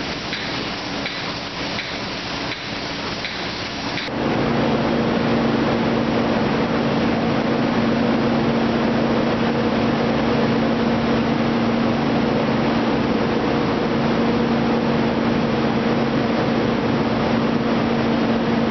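Steady industrial background noise, an even hiss with a low machine hum. About four seconds in it changes abruptly from a rougher, crackling noise with faint ticks.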